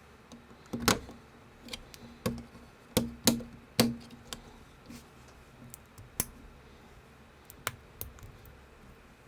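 LEGO-compatible plastic bricks clicking and snapping together as they are handled and pressed on, with pieces knocked down on a hard surface; about a dozen irregular sharp clicks, loudest in the first four seconds.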